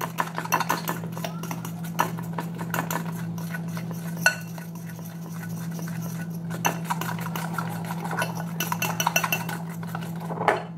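Cassava-dough cake batter being beaten in a glass bowl: rapid clicks and scrapes of a utensil against the glass, with one sharper clink about four seconds in. A steady low hum runs underneath.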